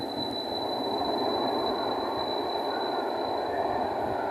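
Tram pulling out of an underground station and running off down the tunnel: a steady rumble of wheels and motors on the rails, with a thin steady high tone above it.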